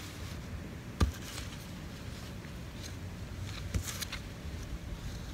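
Hand tool scratching and digging into garden soil while weeding out Bermuda grass roots, in short scrapes, with a sharp knock about a second in and a softer one near the end.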